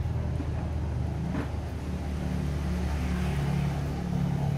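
Steady low engine rumble with a held hum, its pitch shifting slightly in the second half, and one faint click about one and a half seconds in.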